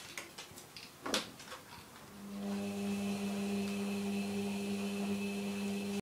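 Beko front-loading washing machine mid-wash with soapy towels: scattered knocks and sloshing in the drum, one louder knock about a second in. About two seconds in, the machine starts a steady hum with a high whine above it.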